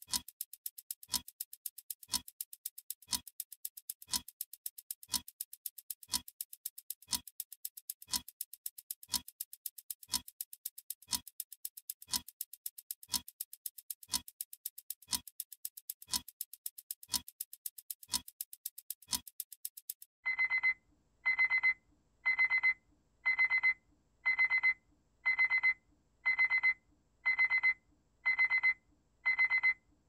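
Clock ticking sound effect, about two ticks a second, that stops about twenty seconds in as the countdown reaches zero. Then an electronic alarm beeps high-pitched about once a second, signalling that the time is up.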